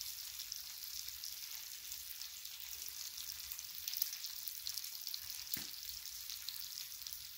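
Pork butt steaks sizzling on a hot Blackstone flat-top griddle: a steady high hiss with fine crackling. One sharp click about five and a half seconds in.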